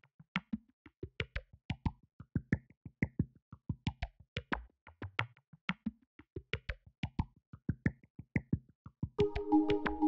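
Background music made of short, clicky percussive notes at a quick, uneven pace. A held synthesizer chord comes in about nine seconds in.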